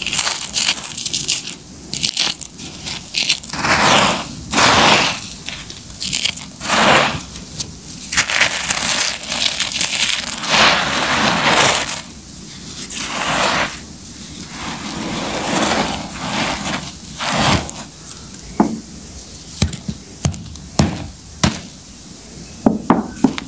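Dry, crumbly concrete being crushed and crumbled between bare fingers, giving repeated gritty crunches as the pieces break up and grit and dust fall back onto a pile of rubble. Near the end come a run of short, sharp cracks as firmer pieces snap.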